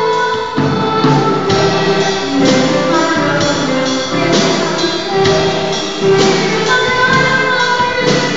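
A girl singing a Christmas song into a microphone, accompanied by two violins and a flute.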